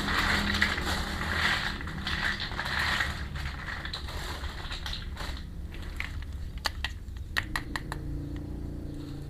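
Plastic packaging crinkling and rustling for the first few seconds, then a scatter of small sharp clicks and taps as small plastic toy pieces are handled.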